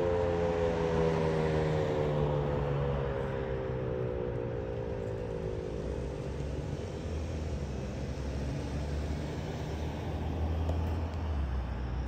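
Federal Signal 2001-SRN electromechanical rotating siren winding down at the end of its three-minute steady alert: its tone glides lower and fades away over about six seconds, leaving a low rumble.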